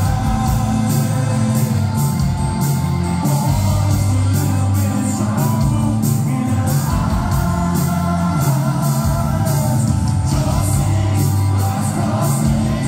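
Live rock band playing loud in a large hall: singing over electric and acoustic guitars, keyboards, bass and a steady drumbeat.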